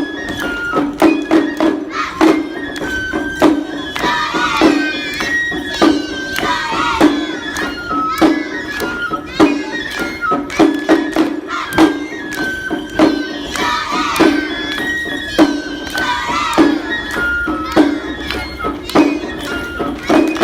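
Live traditional lion-dance music: drums struck hard in a steady, driving rhythm under a high melody that steps between notes. Wavering high pitched sounds rise above the music twice.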